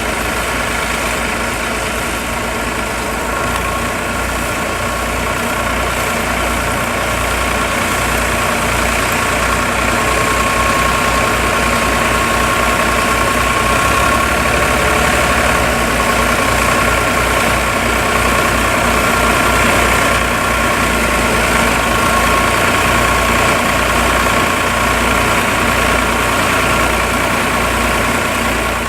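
Farm tractor engine running steadily under load.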